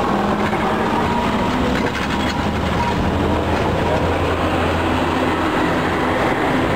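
Vintage electric tram running on street track: steel wheels rumbling on the rails, with a low steady hum for a few seconds midway.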